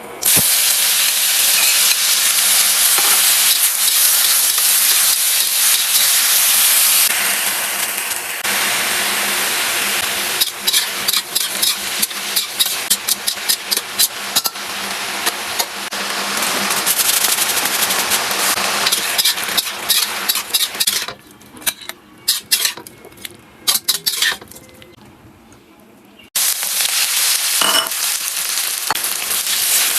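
Food stir-frying in hot oil in a pan: a loud, steady sizzle full of crackles and spatter, with stirring. It starts suddenly, drops away to scattered crackles and clicks for a few seconds late on, then comes back loud all at once.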